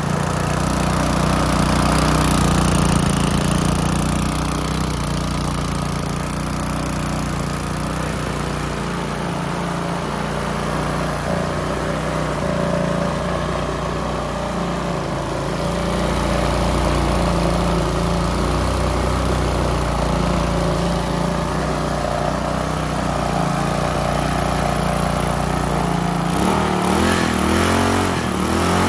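Restored single-cylinder push-mower engine, mounted upright on a wooden base, running steadily at a constant speed, its exhaust led out through an L-shaped galvanized pipe. Near the end its pitch wavers briefly.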